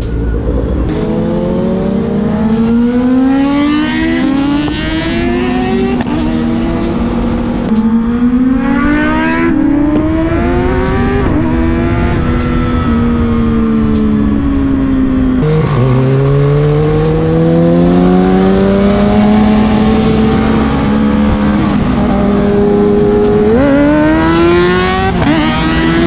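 Sport motorcycle engine accelerating hard through the gears: the pitch climbs in each gear and drops at each upshift. Around the middle it falls away as the bike slows, then climbs steadily again, with two quick upward jumps near the end.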